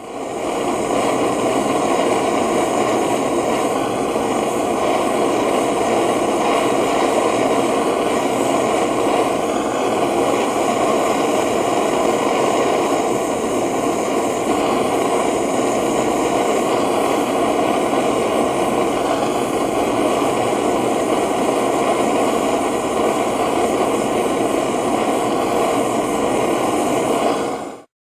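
A loud, steady rushing noise, fading in quickly at the start and stopping just before the end.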